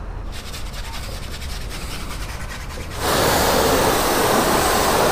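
Hand scrubbing of a foam-covered motorcycle with a sponge or cloth, a soft rubbing. About three seconds in, a high-pressure washer jet starts suddenly and rinses the foam off the bike with a loud steady hiss of spray.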